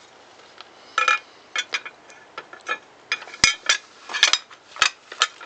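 Light metallic clinks and clicks as a circular saw's metal guard parts and screws are handled and fitted together, about a dozen irregular taps, the sharpest knocks coming between three and a half and five seconds in.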